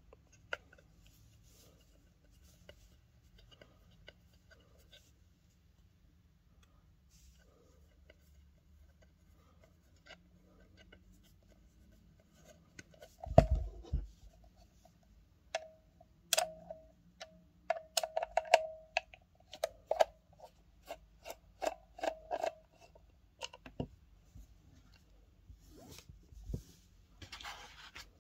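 Handling of a metal-cased BOSS OD-1 overdrive pedal while its baseplate screws are taken out with a screwdriver. There are faint ticks at first, a heavy thump about halfway through, then a busy run of sharp clicks and short metallic scrapes.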